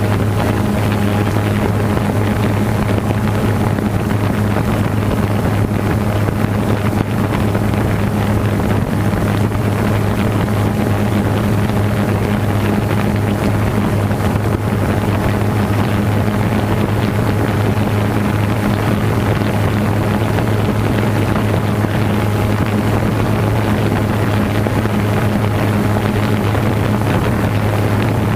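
DJI Phantom 2 quadcopter's electric motors and propellers humming steadily as it flies, with a low steady drone and a fainter tone an octave above. Wind noise rushes over the microphone.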